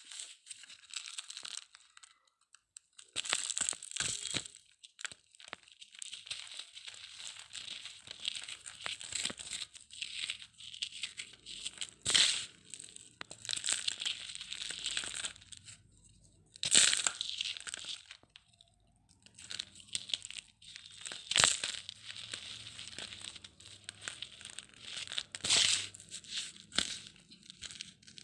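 Dry cement being crumbled: gritty crackling and crunching in stretches, with a louder sharp snap every few seconds as pieces break.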